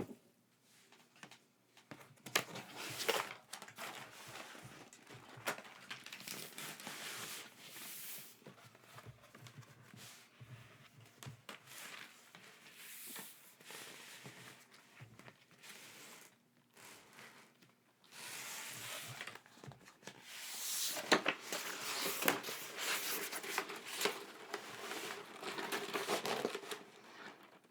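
Packaging being handled, with crinkling and tearing and a few sharp clicks. It comes in two busy stretches, one early and one in the second half, with quieter handling between.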